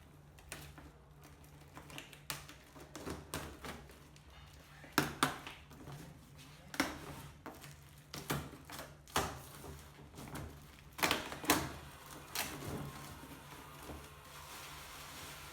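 A cardboard box and its packaging being opened and handled: irregular knocks, taps and rustles, with the sharpest knocks about five and eleven seconds in.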